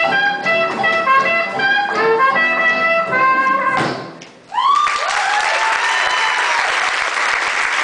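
Swing jazz with brass ends on a final hit about four seconds in. After a short pause, an audience applauds and cheers, with whoops rising and falling over the clapping.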